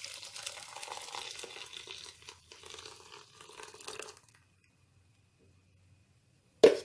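Blended lemon and mint pulp being strained through a mesh strainer: a crackly scraping for about four seconds, then a sharp knock near the end.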